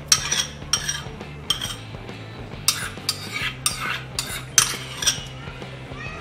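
Metal spoon scraping and clinking against a ceramic bowl and a steel pot as thick cream (malai) is scooped out, in a dozen or so irregular strokes.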